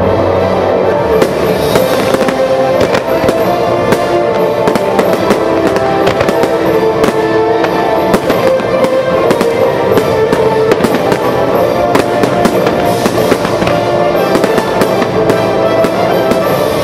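A fireworks display with many sharp bangs in quick succession, over loud music with sustained notes.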